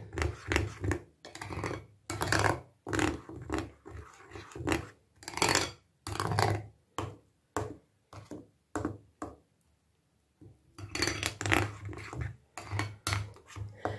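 Metal spoon stirring a thick yogurt and cream mixture in a glass bowl: repeated scraping and squelching strokes against the glass, about two a second, with a quieter stretch of a few light ticks partway through.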